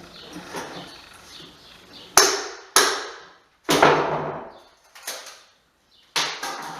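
Hammer blows while carpet tack strip is taken up from a wood floor: four loud, ringing strikes and one lighter one, unevenly spaced.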